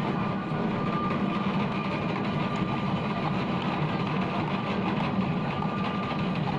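A steady low mechanical drone, like a running motor, with a faint steady whine above it.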